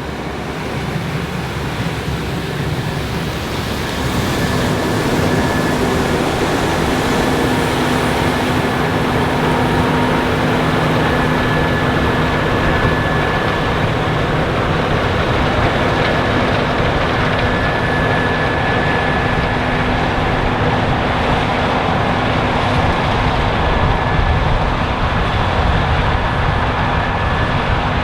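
Case IH 7130 Axial-Flow combine running under load while harvesting corn: the steady drone of the engine and threshing machinery, with a steady hum and whine in it. It grows louder over the first few seconds, then holds steady.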